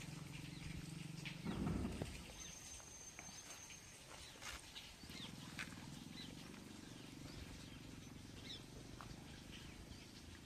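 Faint outdoor ambience: scattered short bird chirps over a low steady hum, with a thin high whistle held for about a second and a half a couple of seconds in.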